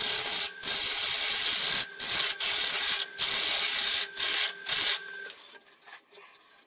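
Turning tool cutting a spinning madrone-and-walnut bowl blank on a wood lathe: a loud hissing shear in runs of about a second, broken by short gaps, over the lathe's steady motor hum. A little after five seconds in the cutting and the hum stop and it falls nearly quiet.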